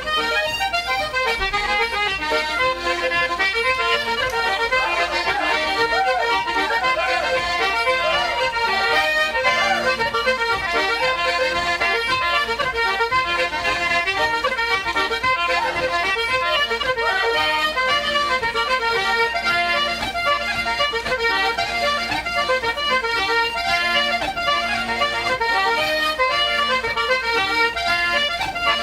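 Irish traditional dance tune played on button accordion and concertina, with reed notes moving quickly throughout.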